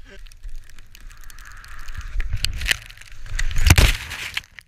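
A fall in deep powder snow heard on an action camera's own microphone: snow crunching and scraping against the camera housing, with knocks and thuds. It is loudest about three and a half seconds in.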